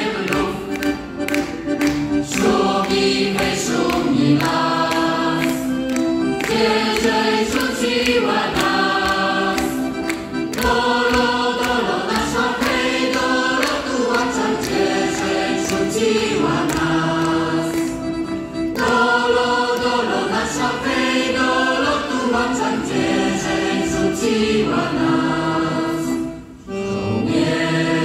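Mixed choir of men's and women's voices singing a Polish patriotic song together in sustained phrases. The sound dips briefly near the end before the next phrase.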